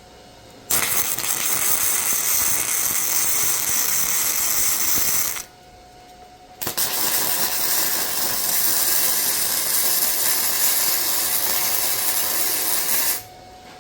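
Flux-core MIG welder laying two beads on steel, a steady crackling hiss from the arc, each run lasting several seconds, with a short break about five seconds in.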